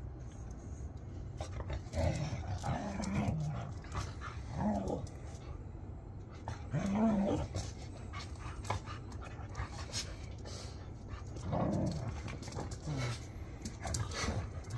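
Two dogs, a husky puppy and a doodle, play-growling as they tussle over a rope toy: a series of short growls a few seconds apart, with scuffling on the concrete in between.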